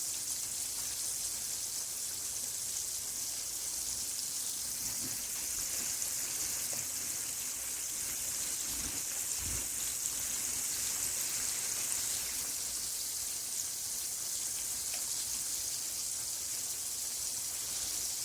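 Floured chicken strips frying in hot oil, a steady sizzle.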